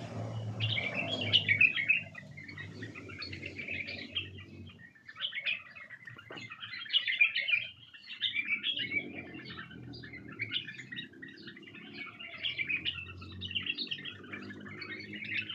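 White-eared bulbuls chirping and calling in a continuous rapid stream of short, bright notes.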